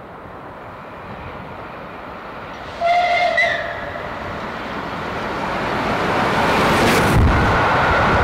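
Steam locomotive No. 35028, a rebuilt Bulleid Merchant Navy Pacific, drawing nearer with a growing rumble. It gives one short whistle about three seconds in and rushes past close by about seven seconds in, after which a steady high tone holds.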